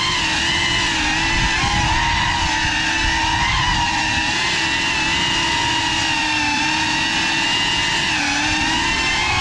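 A GEPRC FPV quadcopter's brushless motors and propellers whining at a steady high throttle, the pitch wavering slightly and dipping briefly twice as the throttle eases.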